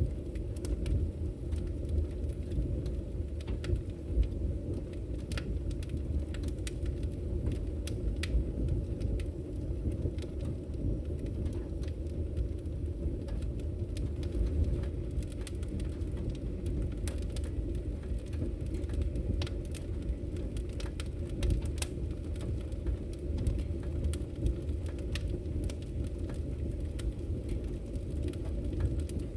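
Wood fire burning in a fireplace: a steady low rumble of flames with scattered sharp crackles and pops of the burning wood.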